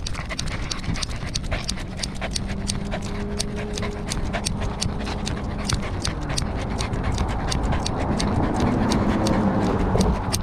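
A corgi panting right at a collar-mounted camera's microphone, with quick regular clicks about five a second.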